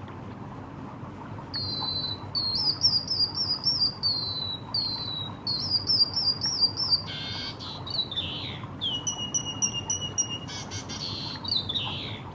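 White-headed munia (emprit kaji) singing a canary-like song: about a second and a half in it starts rapid runs of repeated high chirped notes, then moves into varied rising and falling phrases that stop near the end.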